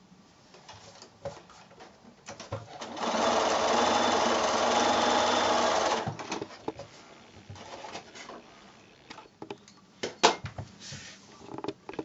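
Bernina electric sewing machine stitching a patchwork seam: it starts a little after two seconds in, runs steadily for about three seconds and stops. A few light clicks and taps of handling follow.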